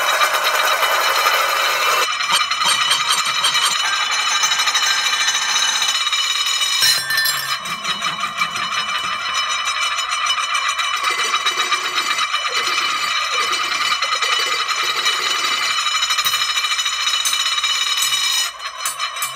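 Stainless steel kitchenware, a pan lid and then a mixing bowl, rocking and spinning on a hard surface: a fast rattling chatter over sustained metallic ringing. The sound changes abruptly a few times as one object gives way to the next.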